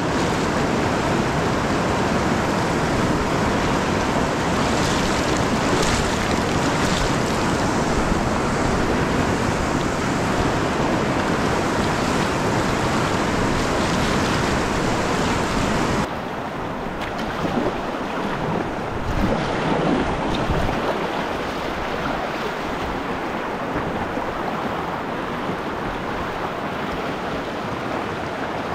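Whitewater rapids rushing around a kayak close to the boat. The steady, loud rush of water drops suddenly about halfway through to a quieter rush of moving river water that swells a few times.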